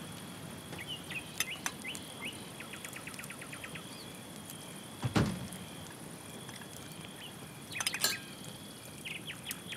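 Night outdoor ambience: a steady high insect trill with short, rapidly repeated bird chirps. A single loud thud comes about five seconds in, and a short burst of clicks around eight seconds.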